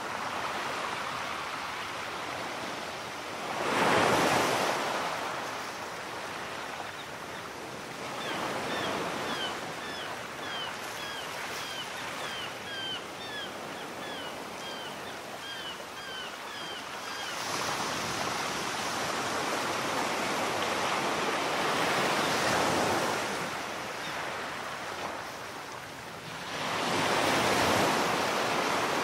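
Small sea waves breaking on a sandy beach, each wash swelling and fading, loudest about four seconds in and near the end. A run of short high chirps, about two a second, sounds through the middle.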